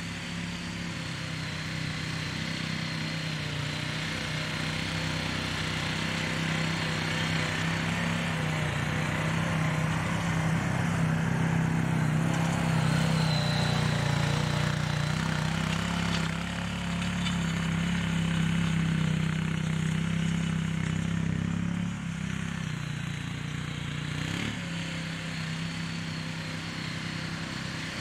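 Honda TRX500FA ATV's single-cylinder engine running steadily under load as it pulls a tillage implement through soil. It grows louder as the quad passes close about halfway through, then fades as it drives away.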